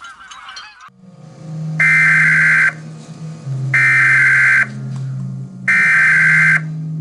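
Emergency Alert System SAME header for a tornado warning: three loud, buzzy bursts of digital data tones, each just under a second long and about a second apart, over a low steady drone. Before them, about a second in, the cartoon soundtrack cuts off.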